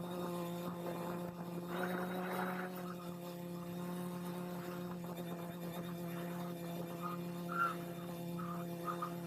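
Steady, even hum of a multirotor drone's spinning propellers, as picked up by the camera it carries.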